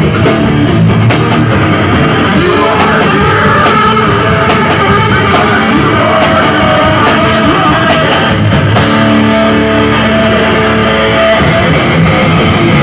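Loud rock music with guitars, drums and singing, in a fast punk rock style.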